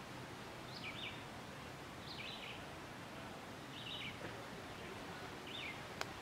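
Short, high call notes repeated about every second and a half over a steady outdoor background hiss, with a single sharp click near the end.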